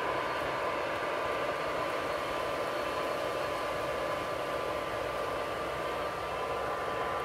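MTH model freight train's cars rolling steadily along the track, a continuous even rolling hiss with a faint steady whine.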